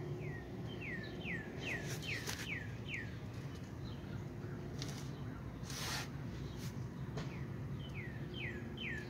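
A songbird singing a run of about seven short falling notes that speed up slightly, heard at the start and again near the end. A steady low hum and a few handling knocks sit underneath.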